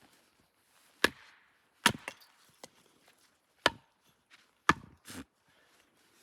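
Axe chopping firewood: four sharp chops, spaced a second or two apart, with a few lighter knocks of wood between them.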